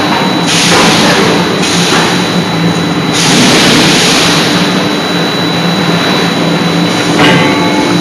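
Hydraulic forging hammer's power unit running with a steady hum, overlaid by repeated long hissing rushes that rise and fall every second or two.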